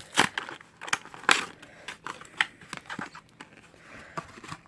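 Cardboard-and-plastic toy packaging being handled and opened: irregular crackles and clicks, the loudest about a quarter second and just over a second in.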